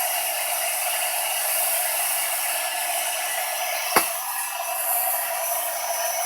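Dremel rotary tool running at high speed, grinding the corners off a small piece: a steady high-pitched whine over a hiss of grinding. A single sharp click about four seconds in.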